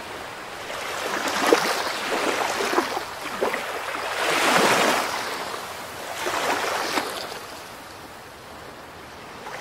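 Ocean surf washing ashore in repeated swells of rushing noise, the loudest wave a little before halfway through, fading quieter near the end, with a few faint clicks.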